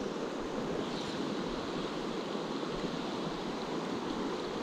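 Shallow stream running over a rocky riffle: a steady rush of flowing water.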